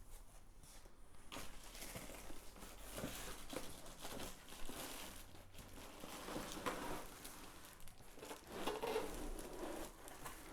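Packaging rustling and crinkling, with scattered small knocks, as a space heater is taken out of its box.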